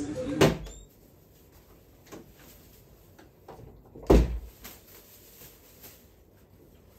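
A door shutting with a heavy thud just after four seconds in, preceded by a sharper knock near the start. Faint clicks and rustles sound in between.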